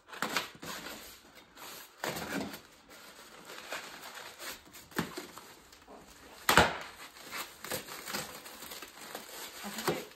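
Cardboard box and its packing being handled and torn open: rustling and crinkling of cardboard and wrapping with scattered taps, and one sharp snap about six and a half seconds in that is the loudest sound.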